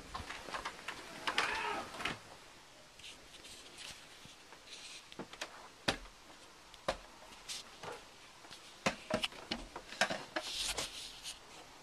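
Irregular sharp knocks and thuds, a dozen or so scattered through, with a short raised voice about a second and a half in.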